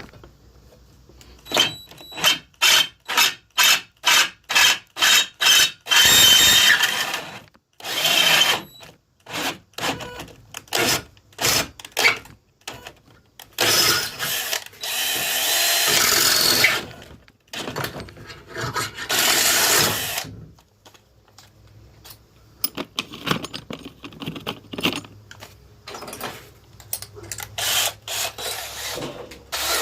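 Handheld power drill boring into metal: first triggered in quick short bursts, about two a second, then run in longer stretches of a couple of seconds with short bursts in between.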